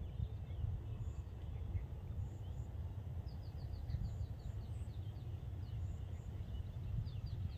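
Birds calling over a low rumble: a quick run of short, falling chirps about three seconds in, and a few more near the end.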